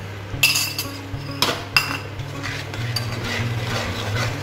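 A metal spatula clinks sharply against an aluminium kadhai about three times, then scrapes and stirs steadily as wheat flour is mixed into hot ghee.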